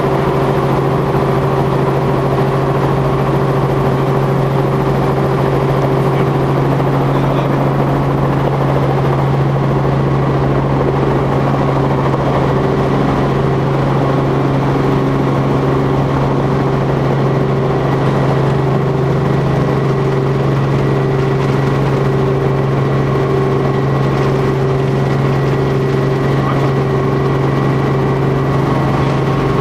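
Helicopter in flight: a loud, steady drone of engine and rotors with a constant low hum, unchanging throughout.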